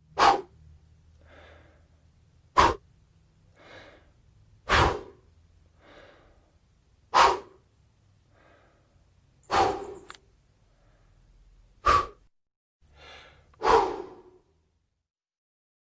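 A person blowing sharp puffs of breath into the microphone, seven in all about every two seconds, with fainter breaths drawn in between.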